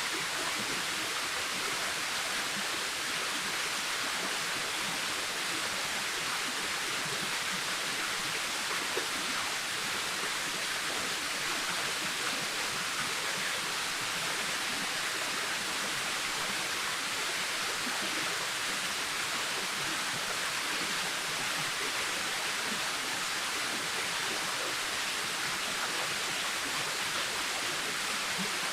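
Waterfall: a steady, unbroken rush of falling water, mostly a bright hiss with little deep rumble.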